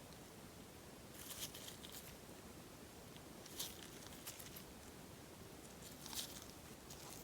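Paper clay slime being pressed and worked by hand, giving soft, crisp crackling and clicking in four short bursts.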